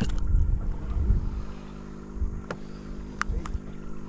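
Steady hum of a boat engine, with wind buffeting the microphone, heaviest in the first second or so. Two sharp clicks come near the middle.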